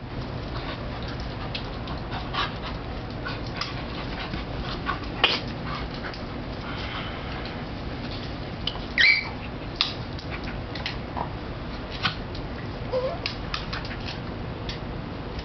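A corgi puppy and a grey wire-haired dog play-wrestling: scuffling with scattered ticks and knocks, a short high yelp about nine seconds in and a brief whine near thirteen seconds.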